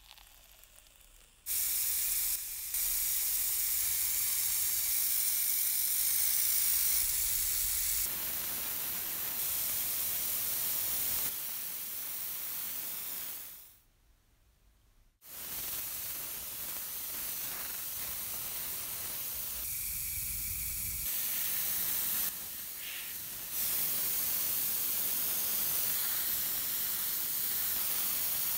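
Airbrush spraying paint: a steady hiss of air. It starts about a second and a half in, stops for about a second near the middle, then runs on.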